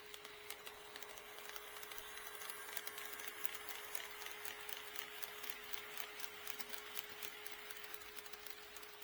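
HO scale model train running past on KATO Unitrack, its motor whirring and its wheels clicking rapidly over the rail joints, growing louder toward the middle and easing off near the end. A steady faint hum sits underneath.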